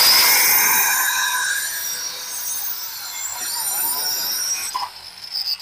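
Hasston ART 3110-001 1200-watt marble cutter with a diamond blade grinding through a clay roof tile, the motor whining at a high pitch over the rasp of the cut. The noise eases and dips briefly about five seconds in, then rises again.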